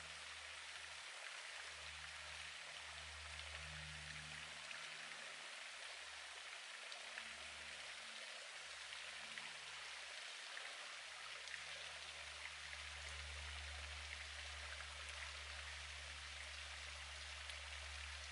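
Faint trickling water: a steady hiss with scattered light ticks over a low hum.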